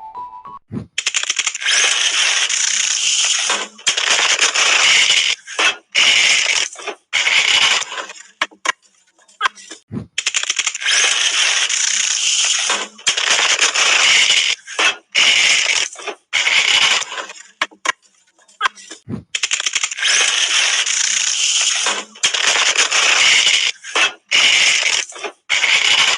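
Harsh, crackling static-like noise in loud stretches broken by short gaps. The same pattern of about eight seconds plays three times over, as in a looped alert sound of a mock emergency alarm.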